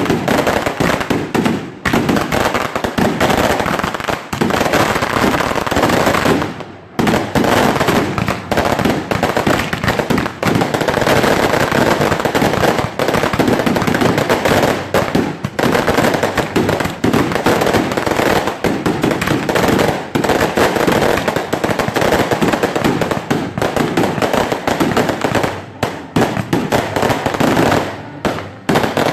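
A long barrage of fireworks: dense, rapid crackling bangs with hardly a break, pausing briefly about seven seconds in.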